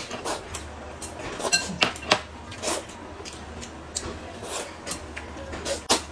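Close-up eating sounds: noodles slurped from a porcelain bowl, with chopsticks clicking and clinking against the bowl in short, irregular sounds and a few sharper clinks about a second and a half in.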